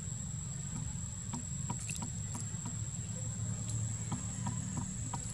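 Insects droning steadily at a high pitch over a low rumble, with scattered small crunching clicks from a macaque chewing sugar cane.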